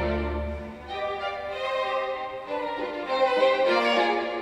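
Bowed-string music with violin, played through a pair of home-made quarter-wave resonance-tube speakers with braced baffles, built around 16 cm full-range Daihatsu factory door-speaker drivers, and picked up by a microphone in the room. A deep bass note stops about a second in, leaving the higher string lines.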